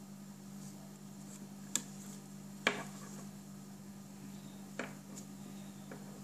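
Four sharp clicks and taps of small hard objects being handled, the second the loudest, over a steady low hum.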